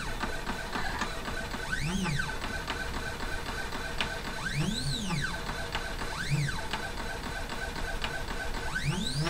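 The stepper motors of a CNC 2418 laser engraver whine in repeated rising-then-falling sweeps as the carriage speeds up and slows down on each pass while it engraves. A steady high tone runs underneath.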